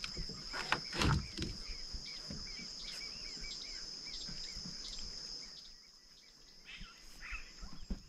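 Steady high insect buzz, with a run of short, quickly repeated chirps from a bird, about three or four a second, that comes back near the end. Two short knocks about a second in.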